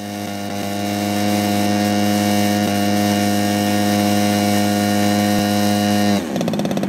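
Engine of a large radio-controlled Katana aerobatic model plane running steadily, then throttled down about six seconds in, its pitch dropping quickly to a choppy, pulsing idle.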